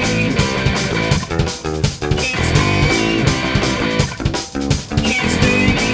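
Rock band recording: electric guitar and bass guitar playing over a steady drum-kit beat with cymbals.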